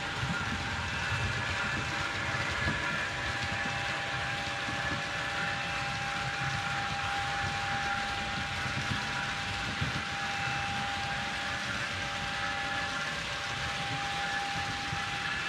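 Fleischmann model trains running on the layout's track: a steady rolling rumble of wheels, with a steady electric whine that swells through the middle.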